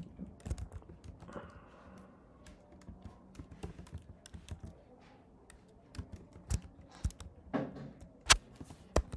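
Typing on a computer keyboard: irregular keystrokes, with a few sharper, louder key presses in the last few seconds.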